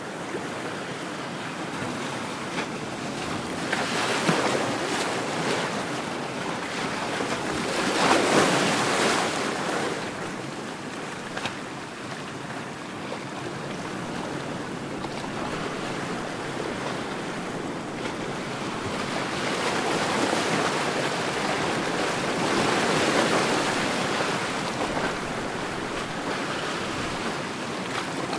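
Ocean surf: waves rushing and breaking, swelling loudest about eight seconds in and again for a few seconds past the middle.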